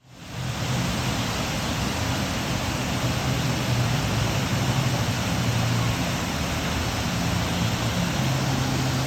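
Steady rushing noise that fades in over the first half second, with a faint low hum underneath.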